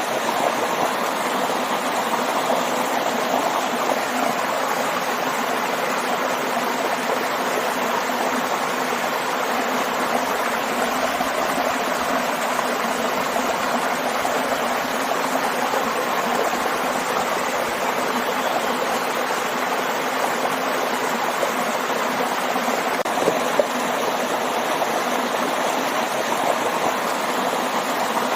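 Stream water rushing and splashing over a small waterfall in a steady, continuous rush.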